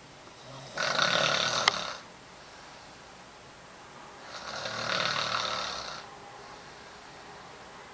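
A sleeping person snoring loudly: two long snores about three and a half seconds apart, the first starting abruptly about a second in with a short click near its end, the second swelling and fading.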